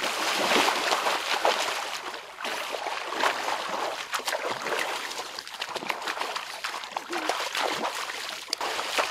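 Water splashing and sloshing as a person wades and thrashes through a shallow muddy pond, sweeping the water with his hands. It comes in a run of uneven splashes with sharp spatters throughout.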